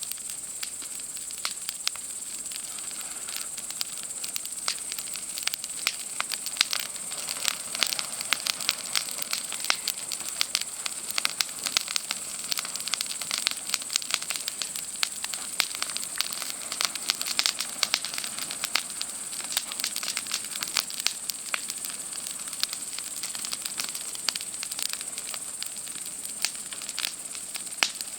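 Wood campfire crackling and popping with many irregular sharp snaps, over a steady high-pitched drone of night insects.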